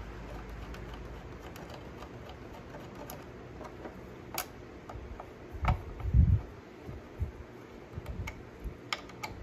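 Hand screwdriver and fingers working the blade-guard bolt on a Ryobi miter saw: scattered small metal clicks and ticks, with a couple of low handling bumps a little past halfway.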